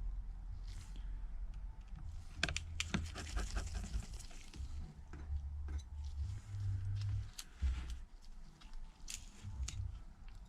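Light, scattered clicks and taps of small precision tools on an iPad's metal parts and screws, with a quick cluster of clicks about two and a half seconds in, over dull low bumps of handling on the work surface.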